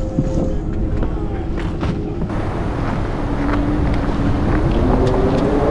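Wind buffeting the microphone over a low engine drone. In the second half a tone joins in and climbs steadily in pitch.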